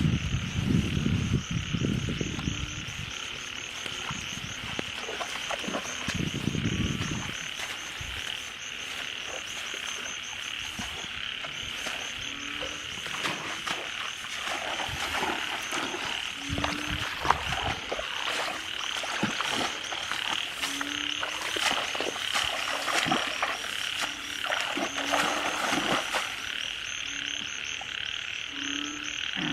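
Frogs croaking: short low croaks repeating about once a second over a steady high-pitched chorus. There is a low rumble in the first several seconds.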